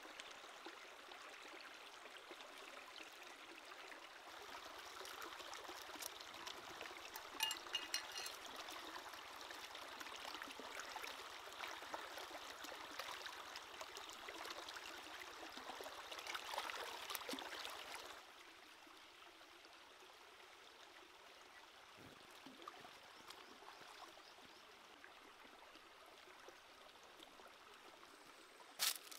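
Shallow stream running over rocks, with scattered splashes from hands washing vegetables in the water. The water noise drops to a quieter level about two-thirds of the way through, and a sharp click comes near the end.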